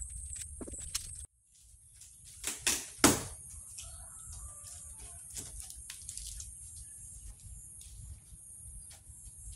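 Two sharp knocks, the second and louder about three seconds in, then scattered light clicks and taps of handling, over a steady high-pitched drone.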